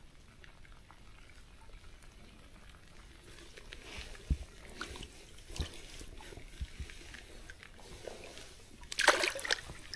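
Faint water sounds with scattered small knocks and taps, then a brief, louder splash near the end.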